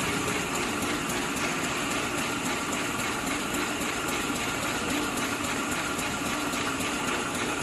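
SL-SBZB450D chocolate candy wrapping machine running at a steady pace: a continuous mechanical whirr with fast, light ticking from its wrapping mechanism.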